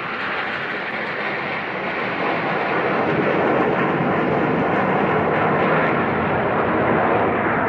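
Jet engine noise from a formation of four military jet fighters flying past: a steady rushing noise that grows louder about three seconds in.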